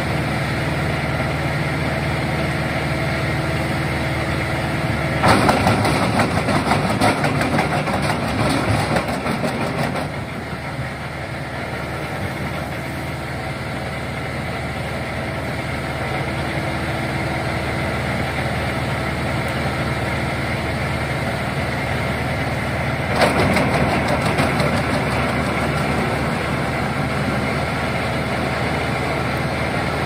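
ARPAL PTO-driven wood chipper and its John Deere tractor running steadily, with two bouts of loud crackling and splintering as branches are fed in and chipped. The first comes about five seconds in and lasts about five seconds; the second is shorter and comes a few seconds before the end.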